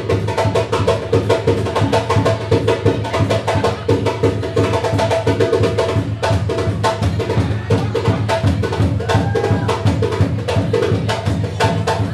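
Music driven by drums played in a fast, dense, unbroken rhythm.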